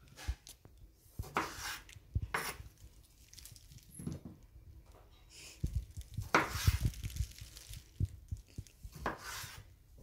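Kitchen knife slicing cherry tomatoes on a wooden cutting board: irregular taps of the blade cutting through onto the board, with a quicker, louder run of taps about six seconds in.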